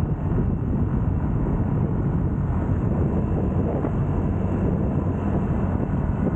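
Steady wind buffeting on the microphone while riding a motor scooter along a road, mixed with the scooter's engine and tyre noise.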